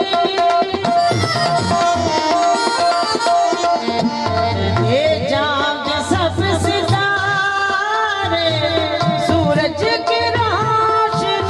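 Live Urdu devotional song in praise of Hussain, sung by a woman with harmonium and tabla. The harmonium holds steady notes and the tabla keeps a rhythm throughout. Her voice sweeps through a long ornamented phrase in the middle.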